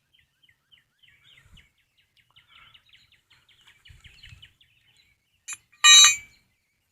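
Faint bird chirps, then a tick and a short, loud, bright ringing clink about six seconds in, like metal parts knocking together.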